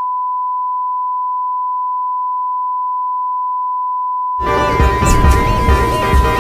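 A steady, unwavering high beep like an electronic test tone. About four and a half seconds in, music with a heavy, pulsing bass beat comes in over it, and the tone carries on underneath.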